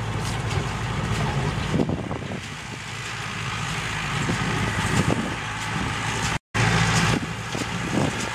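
A motor vehicle engine running steadily at low revs, with a few faint knocks over it; the sound drops out completely for a moment about six seconds in.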